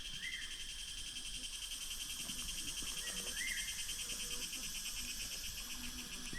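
Insect chorus: a steady, fast-pulsing high buzz. A short call repeats about every three seconds, twice.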